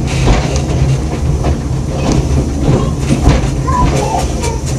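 Narrow-gauge steam train running along the track: a steady low rumble with scattered clicks of the wheels on the rails.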